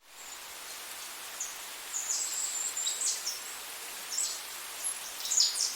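Birds chirping in short, high calls, several falling sharply in pitch, over a steady outdoor hiss.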